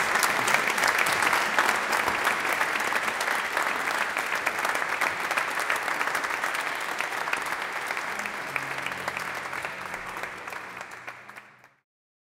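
Audience applauding: dense, steady clapping from many hands that fades out near the end.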